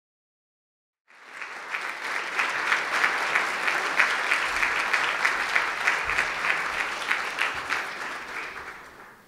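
Audience applauding in a standing ovation: many people clapping together, starting about a second in and dying away near the end.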